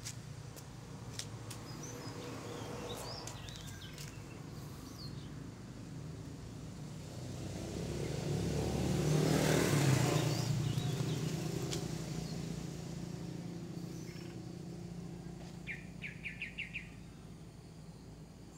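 A road vehicle passes, its noise swelling and fading, loudest about halfway through, over a steady low hum. Scattered bird chirps sound through it, and near the end there is a quick run of about five chirps.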